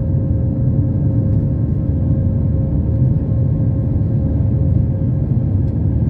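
Airbus A320 cabin noise in flight: a steady low rumble of engines and airflow heard from a window seat, with a faint steady hum that fades out near the end.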